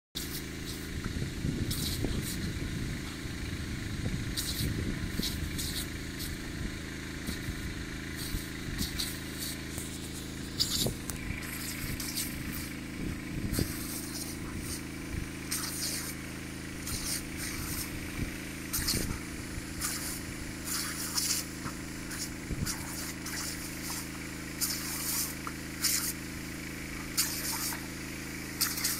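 A jet of water spraying up from a hole in a blue poly pipe, hissing and splashing in short irregular bursts as two dogs bite and paw at it. The bursts come more often in the second half. A steady engine drone runs underneath throughout.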